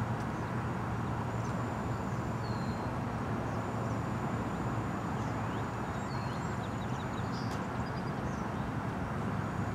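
Steady outdoor background rumble, typical of distant road traffic, with faint high bird chirps now and then.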